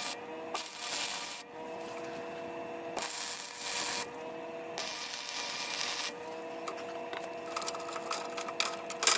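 Electric grinder working steel: a steady motor whine that sags in pitch under load and recovers, with harsh grinding noise in stretches of about a second.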